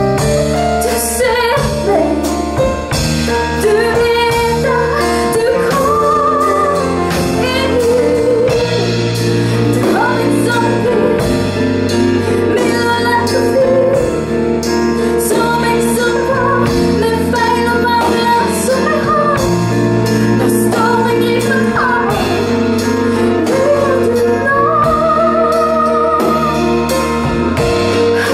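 Live band playing a ballad: a woman singing the lead with vibrato over keyboards, guitar, bass guitar and a drum kit keeping a steady beat.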